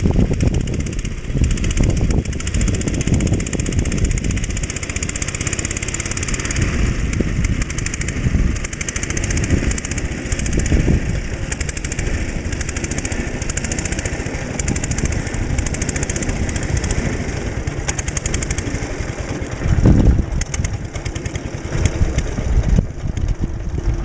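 Trusty garden tractor's 5.5 hp JAP single-cylinder four-stroke engine running steadily while pulling a plough.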